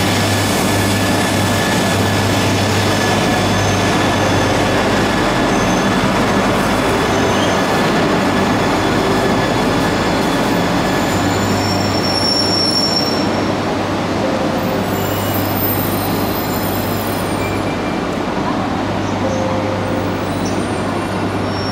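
Genbi Shinkansen, an E3-series bullet train, rolling slowly past along the platform as it pulls into the station and brakes, with a steady low hum under the rolling noise. Brief high squeals come about halfway through, and the noise eases off slightly after that.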